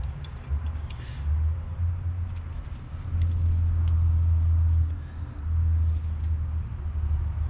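Low, uneven rumble, loudest about three to five seconds in, with a few faint clicks from a plastic wiring-harness connector being worked loose by hand.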